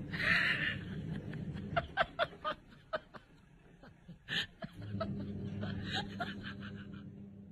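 Quiet snickering laughter in short breathy bursts, several in quick succession, over a low steady hum that drops out for a few seconds.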